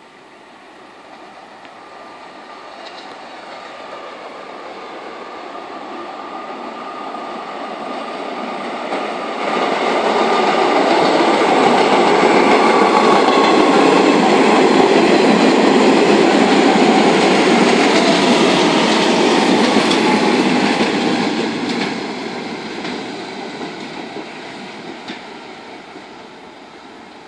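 New York City subway train approaching, passing close at speed and pulling away: the rumble of steel wheels on rail grows louder for about ten seconds, holds loudest for about ten seconds with clicking over the rail joints, then fades.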